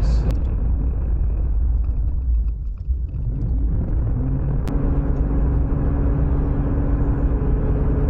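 Road and engine noise inside a Jeep's cabin while it tows a travel trailer: a steady low rumble, with a steady engine hum joining about five seconds in.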